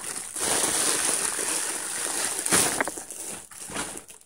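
Plastic poly mailer bag crinkling and rustling as a plush pillow is pulled out of it; the rustling is densest for the first two and a half seconds, then thins to softer, scattered handling sounds.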